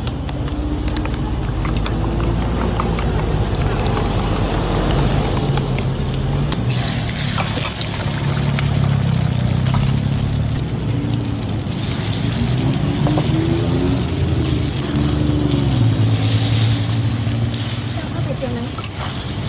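Indistinct voices over a steady rumble of street traffic.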